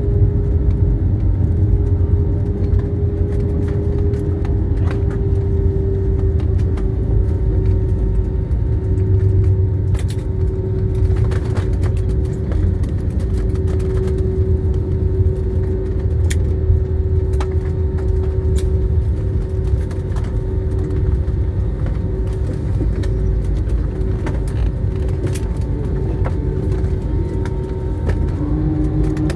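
Airliner cabin noise: the steady low rumble of the engines and airflow under a constant hum, which drops to a lower pitch near the end. A few faint clicks and rattles come through the cabin.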